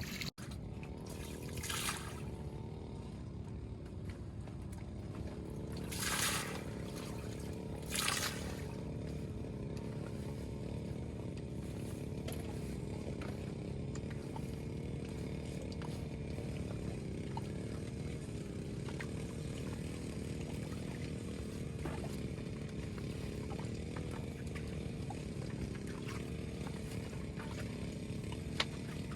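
Small boat engine running steadily, its pitch wavering slightly. Three brief rushing noises come in the first nine seconds.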